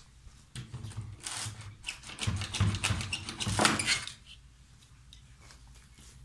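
Footsteps, then a knife being wrenched out of a wooden door: a run of metallic clinks and knocks as the blade is worked loose and the door is jostled, loudest just before it stops about four seconds in.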